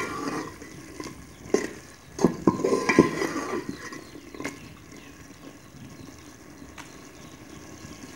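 A perforated metal spoon stirring diced vegetables in a spiced liquid, scraping and knocking against the side of a metal cooking pot (degchi), with a steady soft sizzle of the pot simmering underneath. The stirring strokes stop about halfway through, leaving only the simmer as the vegetables cook down until tender.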